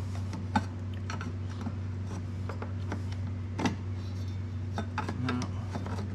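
Light metal clinks and taps as a rusty steel bracket bar is handled and fitted under a generator's plastic base, with two sharper knocks about half a second in and a little past halfway, over a steady low hum.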